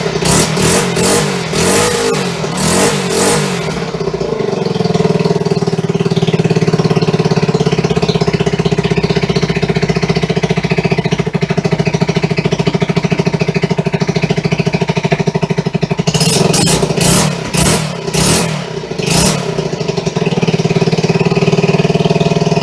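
A 1974 Honda XR75's small single-cylinder four-stroke engine running on its first start after restoration. The revs rise and fall in a few quick blips over the first few seconds, settle into a steady idle, then are blipped again for a few seconds near the end.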